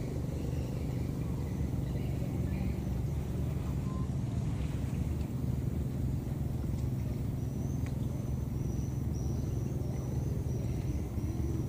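Steady low rumble of an engine running at an even speed. A faint, thin high tone joins about two-thirds of the way in.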